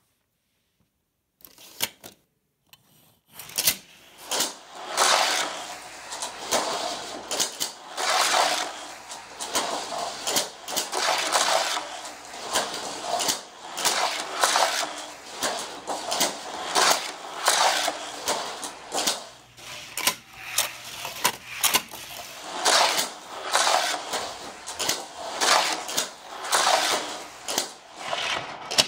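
Hot Wheels dual-lane Rod Runner booster running as two die-cast cars lap an orange plastic track and are shot through it again and again: a rhythmic whirring clatter with a loud burst about once a second. A single click comes about a second and a half in, and the passes build up from about three and a half seconds.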